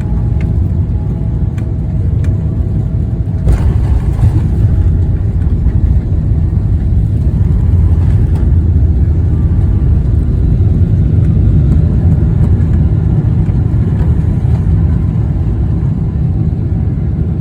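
Boeing 777-300ER landing: a loud, steady, deep rumble, with a brief burst of noise about three and a half seconds in, after which the rumble is a little louder.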